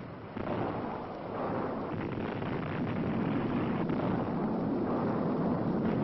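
Long rumble of a dynamite blast in a rock canyon, slowly growing louder as the blast cloud spreads.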